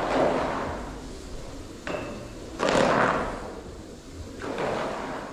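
Three heavy bangs, each dying away over about a second, with a short sharp click just before the loudest one in the middle.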